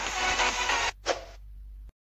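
Background electronic music that cuts off abruptly just under a second in, followed by a single short click sound effect of a like button being pressed.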